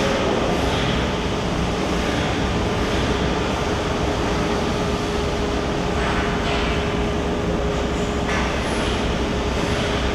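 Steady machinery drone with a constant hum running through it, unbroken and even in level.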